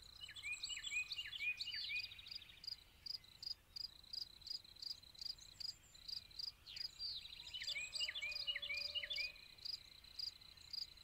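Faint background of crickets chirping in a steady pulse about twice a second. A small bird sings a quick run of short chirps twice: at the start and again about eight seconds in.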